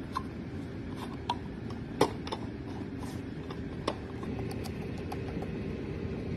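Scattered light clicks and taps of handling, the loudest a sharp knock about two seconds in, over a low steady hum.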